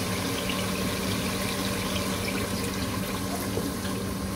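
Whole milk poured in a stream from a plastic bottle into a pot of simmering beef curry, splashing onto the meat, over a steady low hum.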